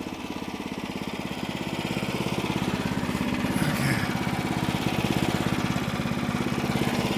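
Sawmill's small gasoline engine running steadily with an even, fast pulsing beat, a little louder from about a second in.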